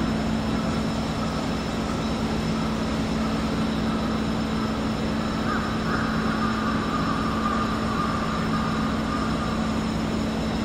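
Steady engine and machinery noise with a constant low hum, like vehicles idling. A faint wavering higher tone rises and falls about halfway through.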